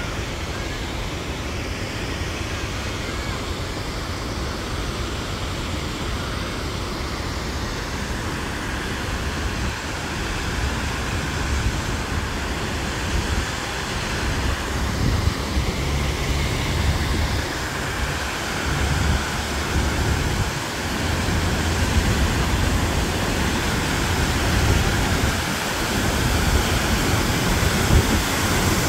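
Steady rushing noise of an artificial waterfall cascading down a rock face, growing louder over the second half as it comes nearer, with wind rumbling on the microphone.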